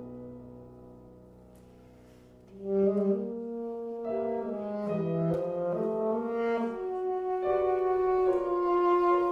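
Classical alto saxophone and piano: a low held note fades away, then about two and a half seconds in the saxophone comes in loudly with a flowing melody over piano notes.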